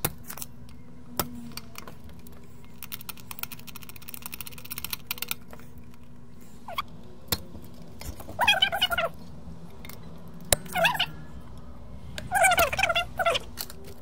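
A spring-loaded desoldering pump snaps once at the start, followed by light clicking of tools on the circuit board. In the second half, three short wavering calls from an animal sound.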